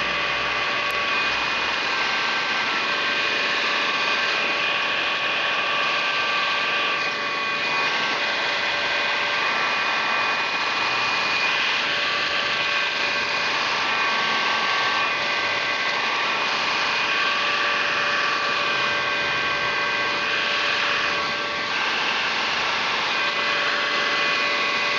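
Heat gun running steadily, its fan blowing air with a rush and a steady motor whine over it. The level dips slightly now and then as the nozzle is moved about.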